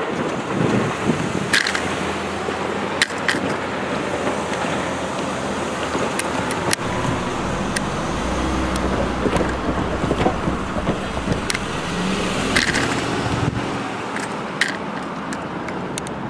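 A pickup truck driving past on the road, then a steady traffic rumble with a low engine hum, broken by a few sharp clicks.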